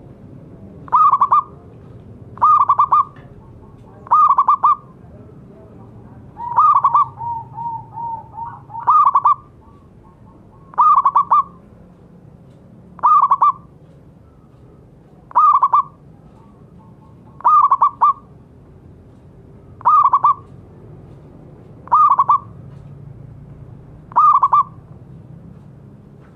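Zebra dove (perkutut) calling: a burst of rapid, stuttering coos repeated about every two seconds, a dozen times over. A softer run of lower quick notes trails after the fourth call.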